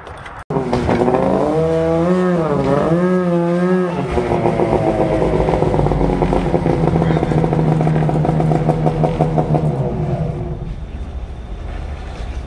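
Polaris snowmobile engine revving hard under load as the sled is driven up a steep loading ramp, the revs swinging up and down for a few seconds, then held high and steady before easing off near the end.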